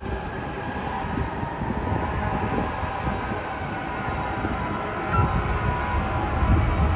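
Street traffic noise: a steady low rumble of passing vehicles, growing louder about five seconds in.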